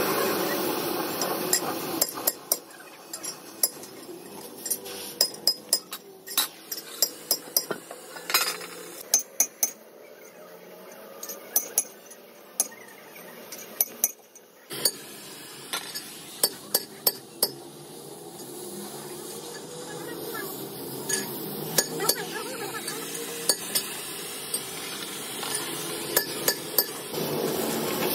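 Oxy-fuel cutting torch hissing as it cuts through steel plate, loud for the first two seconds and again near the end. In between it is quieter, broken by many sharp, irregular metallic clinks.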